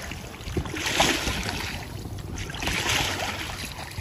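Oars of an inflatable rowing boat dipping and pulling through choppy river water, with splashing and rushing water swelling about once every two seconds in time with the strokes.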